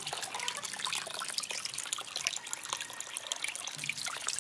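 Water trickling and dripping with many small, irregular splashes as raw tiger prawns are handled and rinsed in water.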